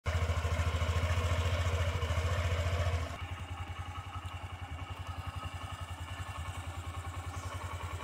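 A small engine running steadily, with an even fast pulse of about ten beats a second. It drops in level about three seconds in.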